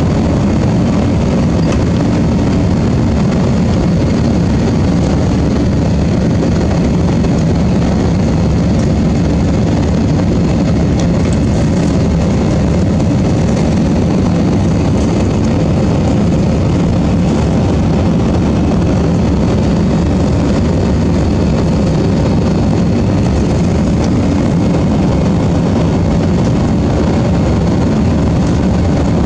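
Steady drone of an Airbus A321's jet engines, heard inside the cabin during the climb after takeoff, holding the same pitch and level throughout.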